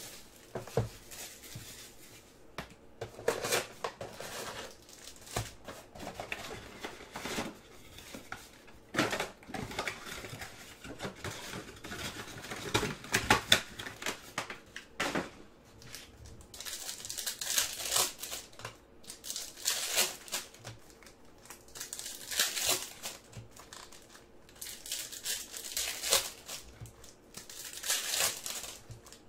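Foil trading card packs being torn open and their wrappers crinkled, heard as irregular rustling bursts with small clicks. The crinkling gets busier in the second half.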